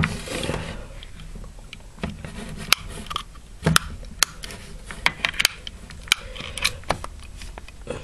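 Handling noise: a dozen or so irregular sharp clicks and light knocks with soft rustling, as the hair dryer's mains plug is turned over in the fingers close to the camera. The dryer itself is not running.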